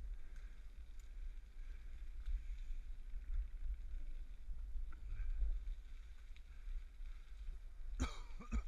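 Wind rumbling over a GoPro camera's microphone as a bicycle rides fast along a dirt path, with a faint hiss of tyres and movement. A short high-pitched sound cuts in near the end.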